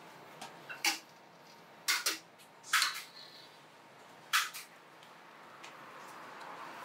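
Large aluminium pots and their metal handles knocking and clanking as they are handled: four sharp clanks spread over a few seconds, some with a brief ring. A soft hiss builds near the end.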